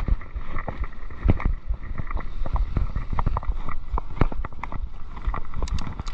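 Mountain bike rattling and clattering over a rough forest trail, with irregular knocks from the frame and components, a low rumble, and wind buffeting the microphone.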